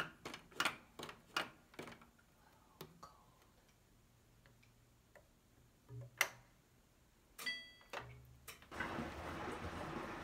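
Control-panel buttons on a front-loading washing machine clicking as they are pressed, several quick clicks in the first two seconds and a firmer one about six seconds in when start is pressed. A short electronic beep follows, then a low hum and a steady rushing sound from about nine seconds in as a cold rinse-and-spin cycle starts and water runs into the drum.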